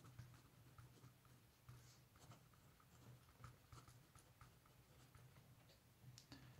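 Pen writing on paper: faint, scattered scratches of short handwriting strokes.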